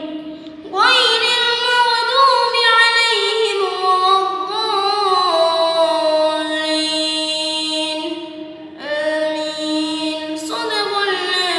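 A boy singing alone, a slow melody in long held notes that slide from pitch to pitch. He pauses briefly for breath about half a second in and again around eight and a half seconds in.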